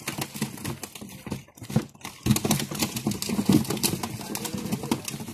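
A heap of live pangasius catfish flapping on a plastic tarp: a rapid, irregular patter of wet slaps and clicks.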